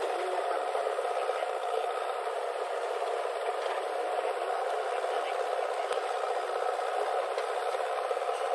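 Diesel engines of a JCB 3DX backhoe loader and a Massey Ferguson tractor running steadily while the backhoe loads soil into the tractor trolley, with a light knock about six seconds in.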